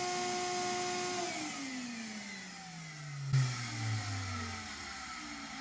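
An electric motor running at steady speed, then switched off about a second in and winding down, its hum falling in pitch over a few seconds. A short knock comes about three seconds in.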